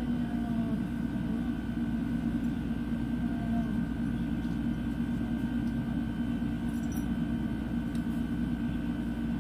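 Steady low machine hum with a faint constant high tone over it, unchanging throughout.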